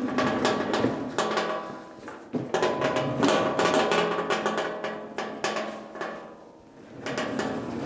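Music with sharp percussive hits over sustained tones.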